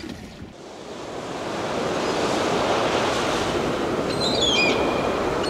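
Sea surf washing steadily, swelling up over the first couple of seconds. A few short, high bird chirps come in near the end.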